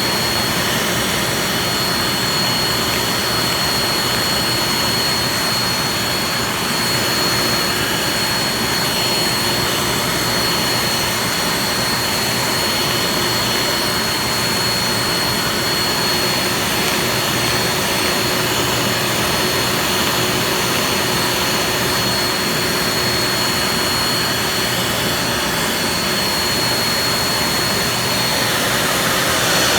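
Vacuum cleaner motor running steadily under suction, a loud even rush with a thin high whine over it.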